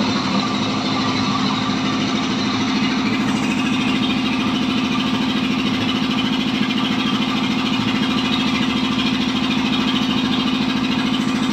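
Motor-driven ice crusher running steadily: a constant low hum with rapid pulsing under a loud, dense grinding noise as blocks of ice are fed in.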